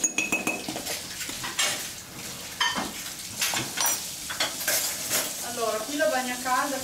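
Wooden pestle pounding and grinding crumbled amaretti biscuits and cocoa in a glass bowl: repeated crunching strokes and knocks against the glass.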